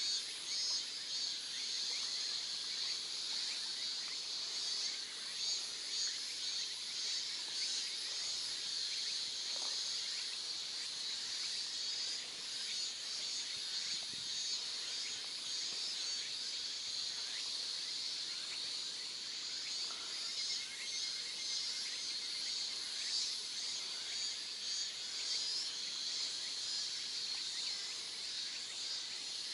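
A steady, high-pitched insect chorus, a continuous shrill hum that swells and fades a little.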